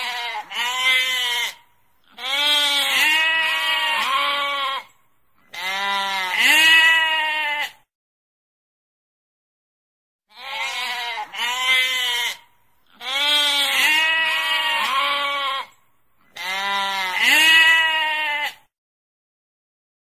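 Sheep bleating: long, quavering bleats in clusters, a pause of about two seconds midway, then another run of bleats much like the first.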